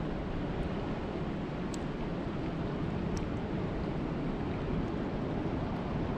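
Steady rainforest rain ambience: a dense, even rushing noise, heaviest in the low end, with two faint sharp ticks about two and three seconds in.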